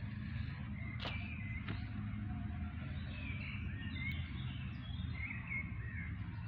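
Small birds chirping here and there over a steady low outdoor rumble, with a single sharp click about a second in.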